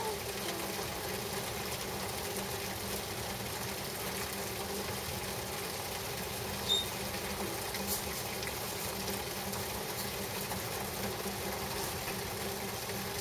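Heavy rain falling steadily in a summer storm, an even hiss of downpour on grass and trees. A short high chirp cuts through once about six and a half seconds in.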